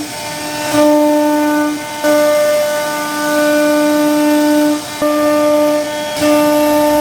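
CNC wood router spindle running at a steady high-pitched whine while carving a wooden door panel. The whine swells and drops back every second or two as the bit works through the cut.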